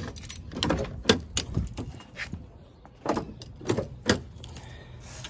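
A car's outside door handle and latch being worked, giving a run of about seven sharp clicks and clacks, with keys jangling in the same hand.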